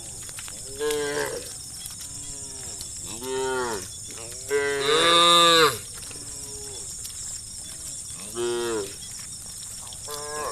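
Cows mooing: four separate calls a few seconds apart. The third is the longest and loudest, held for over a second.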